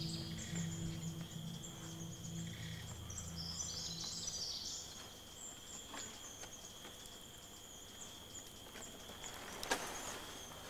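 Rainforest ambience: a steady high insect buzz with scattered bird chirps, while low background music fades out over the first few seconds. A single sharp snap comes near the end.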